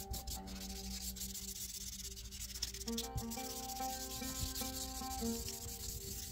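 A hand rubbing across drawing paper, smudging charcoal shading, with background music of held notes playing under it.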